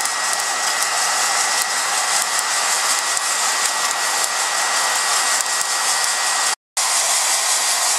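Heat gun blowing steadily up through a flour-sifter coffee roaster, with a thin steady whine, while the dark-roasted beans crackle faintly at the finish of the roast. The sound cuts out for an instant near the end.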